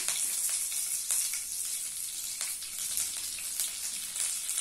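Curry leaves, dried red chillies and chana dal sizzling in hot oil in a nonstick frying pan, the tempering for a sundal: a steady high hiss with many small crackles and pops.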